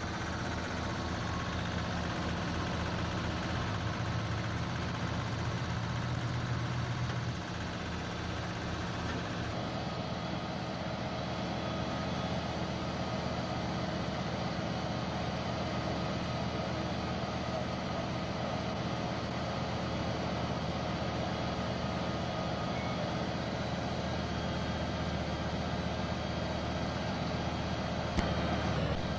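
A vehicle engine idling steadily, its sound changing about nine seconds in, with a single click near the end.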